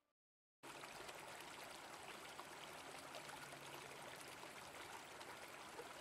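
Faint, steady rush of river water flowing over rocky rapids, starting about half a second in after a moment of silence.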